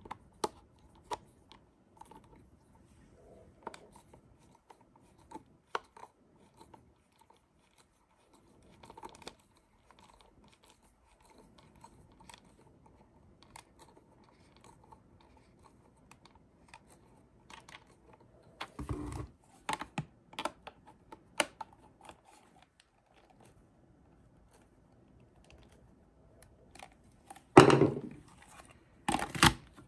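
Small clicks and plastic knocks of a #2 screwdriver driving the single screw back into the LG CordZero A9 vacuum's plastic body and of the plastic parts being handled, scattered and irregular, with a louder clatter about two-thirds of the way in and again near the end.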